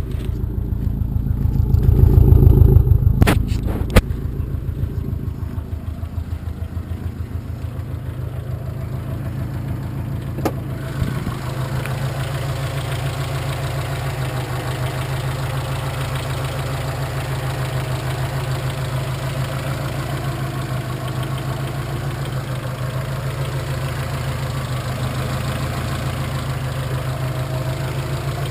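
2004 Subaru Impreza WRX STI's turbocharged flat-four engine running at idle, carrying an odd noise from the driver's side that the owner cannot place. It swells loud in the first few seconds with two sharp clicks, then settles into a steady idle.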